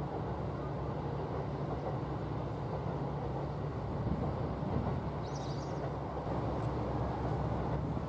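JR 285 series sleeper electric train pulling away at low speed, a steady low hum and rumble of its running gear. A brief faint high chirp comes about five and a half seconds in.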